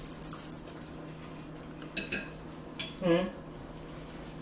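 Metal forks clinking and scraping on plates as people eat, with a couple of sharp clinks. A brief vocal sound about three seconds in, over a low steady room hum.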